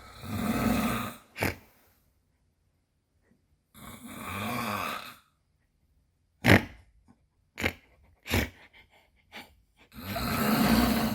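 A man snoring in his sleep: three long snores spaced several seconds apart, with a few short sharp sounds between them.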